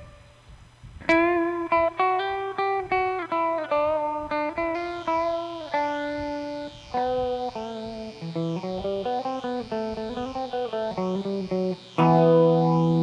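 Electric guitar playing an instrumental lead line of quick single notes, run through an effects unit. A sweeping modulation effect comes in about five seconds in, and after a brief pause near the end a louder note rings out.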